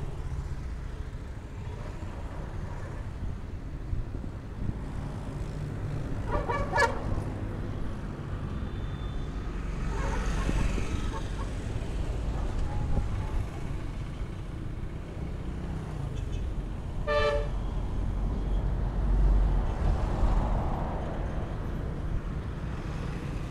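Roadside traffic: engines and tyres of passing vehicles, with a heavy truck rumbling past near the end. Two short horn toots, about a quarter of the way in and again about three-quarters through.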